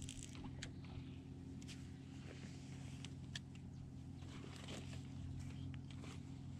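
Faint outdoor background: a steady low hum, with scattered small ticks and rustles.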